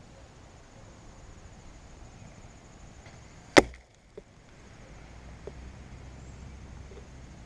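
An arrow arriving and striking at the target with one sharp, loud crack about three and a half seconds in, followed by a couple of faint ticks.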